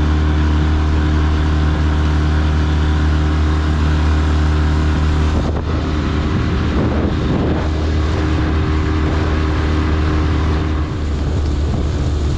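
Outboard motor running at speed, driving an inflatable boat through the water, with water rushing past the hull and wind on the microphone.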